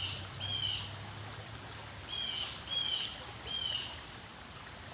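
A songbird calling, a series of short, slightly down-curving high chirps: two near the start, then three more about two seconds in, over steady outdoor background noise.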